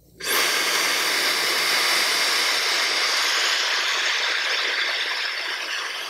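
Fentgo high-speed hair dryer with a 110,000 RPM brushless motor switching on: a short rising spin-up, then a loud, steady rush of air with a faint high whine.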